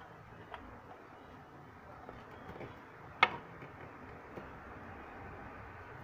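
Small plastic clicks and handling rubs as a smartphone holder is fitted onto a mini tripod's ball head. There are a few faint ticks and one sharp click about three seconds in.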